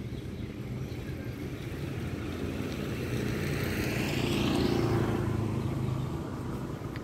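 A motor vehicle passing unseen: steady engine noise that swells to its loudest about four and a half seconds in, then fades.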